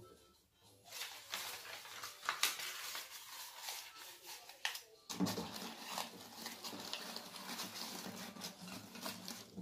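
Clear cellophane gift wrap crinkling and rustling in irregular crackles as it is handled around a gift, with a few sharper crackles.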